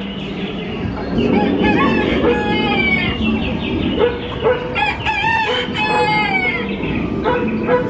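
Recorded barnyard sound effect of a rooster crowing and hens clucking, played through a dark ride's sound system, with soft music underneath.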